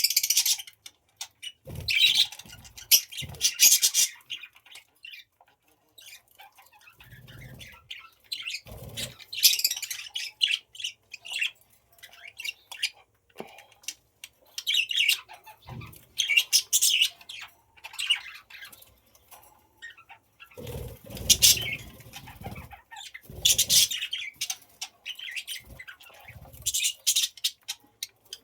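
Budgies fluttering their wings, with chirps, in short noisy bursts that come back every few seconds.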